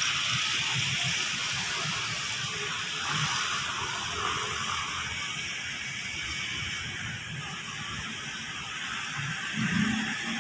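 Steady outdoor evening ambience: an even hiss of distant city noise, with soft low thumps from walking footsteps. A brief louder low sound comes near the end.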